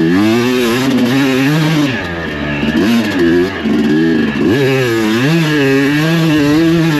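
Yamaha YZ250 two-stroke dirt bike engine revving up and down under a rider's throttle, its pitch rising and falling repeatedly, about once a second.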